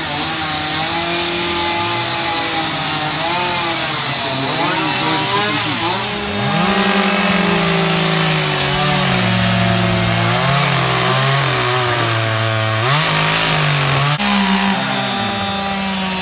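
Several gas chainsaws carving wood, running at once and revving up and down, with the engine pitch rising and falling as they cut. The sound gets louder about six seconds in.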